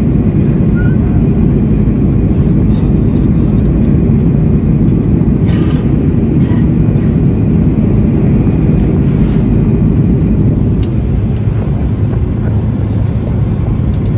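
Steady engine and airflow noise heard inside the cabin of an Airbus A330-200 with Rolls-Royce Trent 700 engines, climbing after takeoff.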